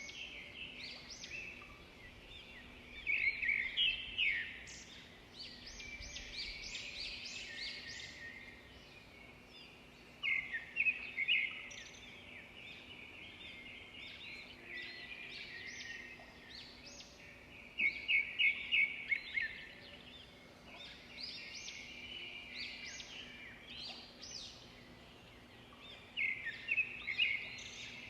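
Birds chirping and twittering in bouts of rapid high chirps that swell about every seven seconds, with quieter chirping between, over a faint steady low hum.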